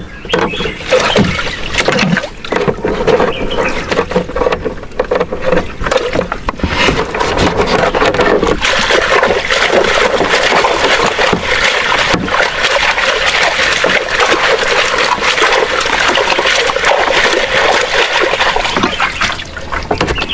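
Water splashing and trickling, with scattered knocks in the first several seconds, then a steady rush of splashing water from about eight seconds in.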